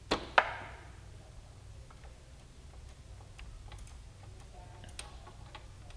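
Wrench clicking on a motorcycle brake caliper's bleeder screw while the brakes are bled: two sharp clicks right at the start, the second the loudest with a short ring, then a few faint scattered ticks.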